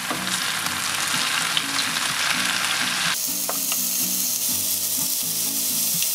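Chicken and chopped vegetables sizzling in a frying pan as they are stirred with a wooden spatula. The sizzle is steady and changes character abruptly about three seconds in.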